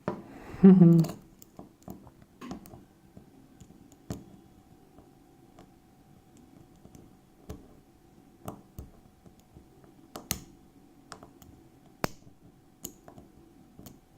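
Scattered small clicks and taps of a lock pick and tension wrench working the pins of a Master Lock ProSeries 6835 padlock, irregularly spaced, with a brief louder sound about a second in.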